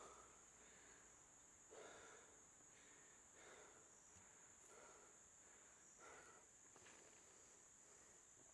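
Near silence, with a faint, steady, high chirring of crickets. Soft puffs of noise come at a regular pace, about every second and a half.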